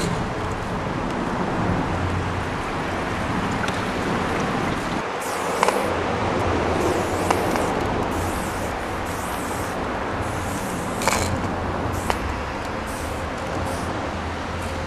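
Aerosol spray-paint can spraying in about seven short hissing bursts, starting about five seconds in, with a few sharp clicks among them, over a steady low background rumble.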